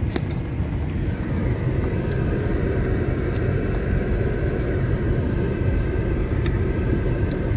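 Car driving on a dirt track, heard from inside the cabin: a steady low rumble of engine and tyres, with a few scattered clicks.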